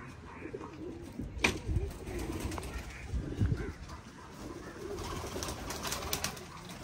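Domestic pigeons cooing at intervals, with a sharp click about one and a half seconds in and a couple of dull low thumps.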